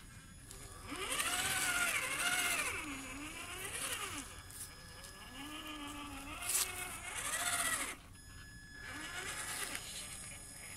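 Electric motor and gear whine of a Traxxas TRX-4 Ford Bronco RC crawler, its pitch rising and falling with the throttle as it crawls over moist sand. It cuts out briefly near the start and again about eight seconds in, with one sharp click shortly before the second pause.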